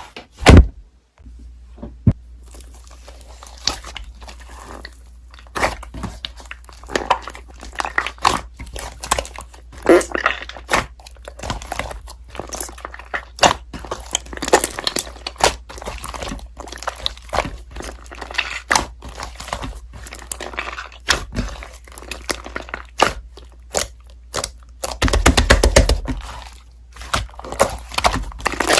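Slime being squeezed and pressed, giving off irregular crunchy crackles and small popping clicks, with one sharp click right at the start and a denser, louder run of crackling near the end.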